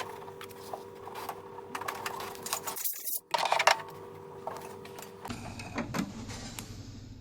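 Small hand tool scraping and clicking against a phone's back housing, clearing off old adhesive, over a steady electrical hum. The hum stops abruptly a little after halfway, and the scraping is densest around the middle.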